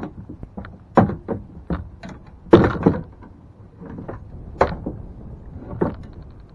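Irregular knocks and thumps of gear being handled against a kayak, the loudest about a second in and again about two and a half seconds in, with a few more near the end.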